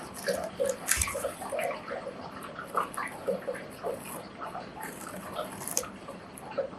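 Printed etching paper being cut by hand, with irregular small scrapes, snips and paper rustles and a sharper click about a second in.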